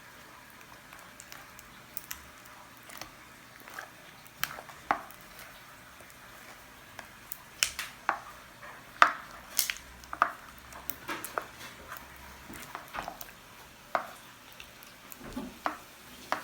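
Slime being stirred with a spoon in a container: irregular clicks of the spoon against the sides and sticky squelches, more frequent in the second half.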